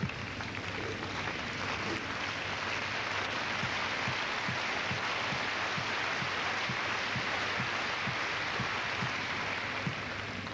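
Indoor arena crowd applauding after a point, swelling over the first few seconds and fading away near the end.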